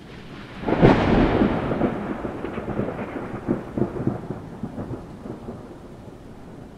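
A thunder clap: a sudden loud crack about a second in, then a rumble with scattered crackles that slowly fades.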